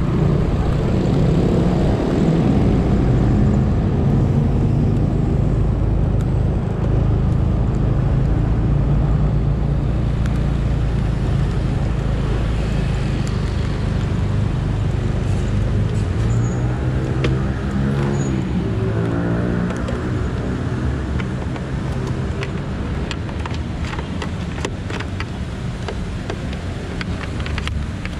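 Automatic scooter on the move: steady engine drone with road noise. Another vehicle sweeps past partway through, and scattered sharp ticks come toward the end.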